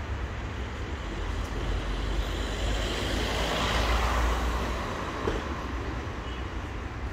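Road traffic: a passing vehicle's noise swells about three seconds in and fades again, over a steady low rumble.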